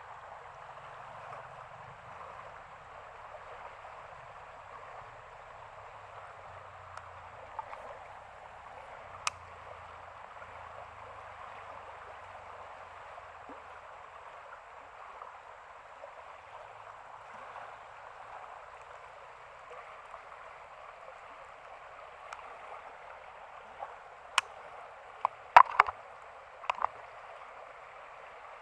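Steady rush of flowing floodwater in a stream or ditch, with a few sharp clicks and knocks near the end.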